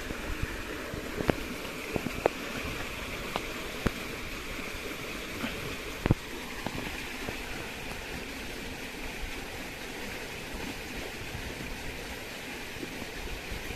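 Steady rushing noise, like flowing water, with a few sharp light clicks and taps in the first six seconds.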